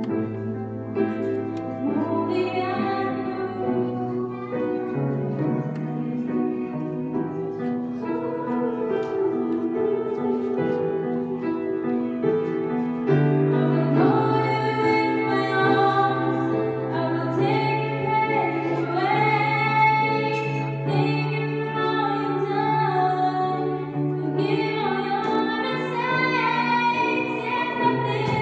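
A woman singing a solo into a microphone, with piano accompaniment holding low notes beneath the voice. The singing grows louder about halfway through.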